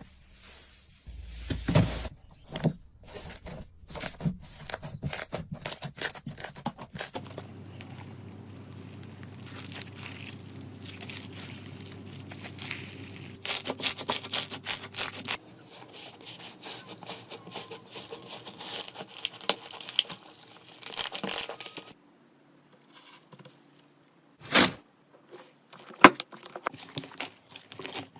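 Slime being handled by hand: squeezed, stretched and pressed, giving many small sticky crackles and clicks in quick succession. It comes as several short clips, with a brief silence between two of them and a few sharper pops near the end.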